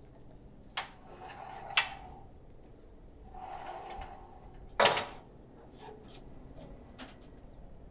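A metal entrance gate being worked. A latch clicks and the gate scrapes open, then it scrapes again and shuts with a sharp clank about five seconds in, followed by a few light clicks.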